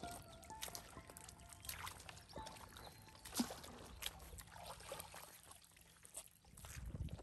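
Light sloshing and splashing of a person wading in shallow muddy water with a plastic bucket, with small scattered clicks and trickles.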